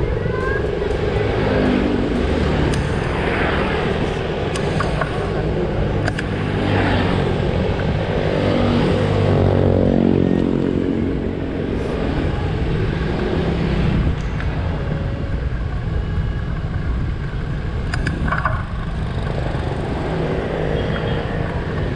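Motorcycle ride on a town road: a motorcycle engine running under wind and road noise on a mounted camera, with other traffic. An engine note swells and falls away about ten seconds in.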